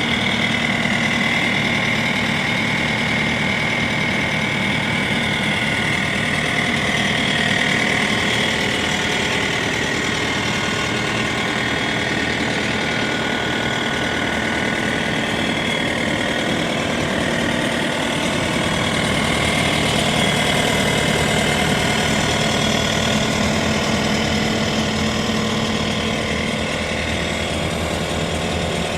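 Bobcat T550 compact track loader's diesel engine running steadily at idle.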